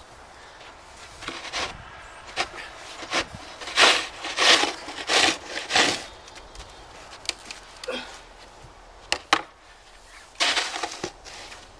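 Push snow shovel scraping snow along a driveway in a run of short strokes, its blade rasping on the packed snow and pavement. Two sharp knocks come about two-thirds of the way in, then a final longer scrape.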